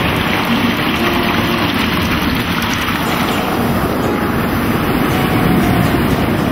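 Sea surf breaking and washing up a sandy beach, a steady rushing noise.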